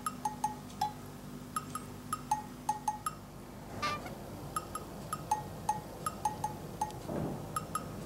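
Background music: a light, plinking tune of short bell-like notes at a bouncy, even pace.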